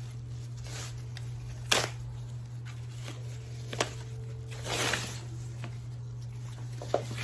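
A leather handbag being handled: a few sharp clicks and a short rustle, over a steady low hum.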